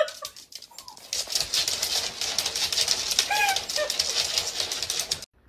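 Several short, bending calls from an animal over a loud crackling hiss, which cuts off suddenly near the end.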